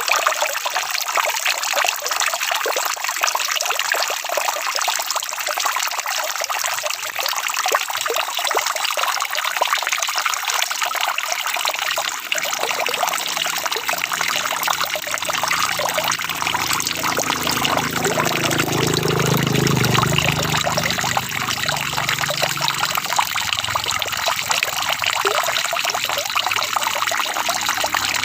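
Steady rain, a dense patter of drops with water trickling. A low rumble swells and fades about two-thirds of the way through.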